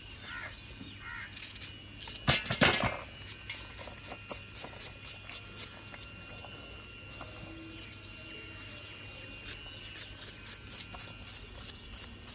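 Onion being sliced by hand with a small knife, the blade cutting through the layers in short crisp clicks that come quick and frequent from about halfway through. A burst of louder knocks about two seconds in.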